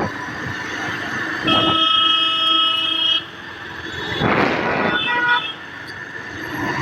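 Vehicle horns honking in road traffic: one long horn held for nearly two seconds starting about a second and a half in, then a few short toots around five seconds in, over the rush of passing traffic.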